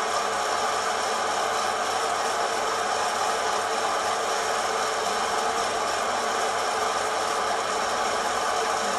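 Kaffelogic fluid-bed coffee roaster running: the steady rush of its hot-air fan, with a light rattle from the beans tumbling in the roast chamber.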